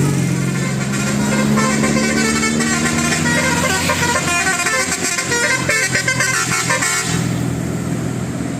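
Bus telolet horn, a Basuri multi-tone air horn, playing a quick run of changing notes over a steady low hum; the melody cuts off about seven seconds in.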